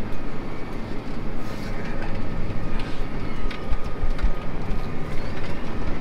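John Deere tractor pulling a Massey Ferguson 3x4 large square baler, heard from inside the tractor cab: a steady low machinery drone, with a few low thumps about four seconds in.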